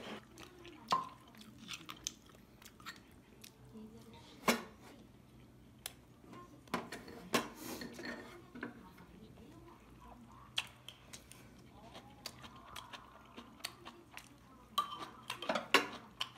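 Metal spoons clinking and scraping against ceramic bowls and an earthenware pot, in scattered sharp clicks, with chewing in between.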